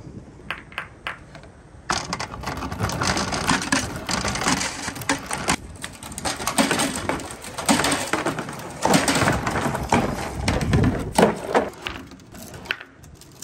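Large glass crystal balls rolling and rattling down a long gutter marble run, a dense rumble full of knocks and clacks that starts about two seconds in, after a few light clinks. It thins out to scattered clicks as the balls come to rest against the stopper near the end.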